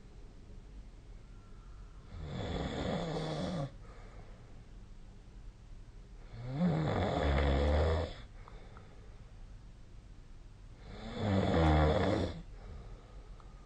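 A sleeping person snoring: three snores, each lasting about a second and a half, coming roughly every four and a half seconds.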